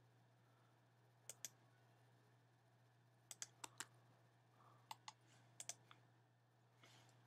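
Faint, sharp clicks of a computer's keys and mouse button, over a low steady hum. There is a pair about a second in, a quick run of four at about three and a half seconds, and a few more near five seconds.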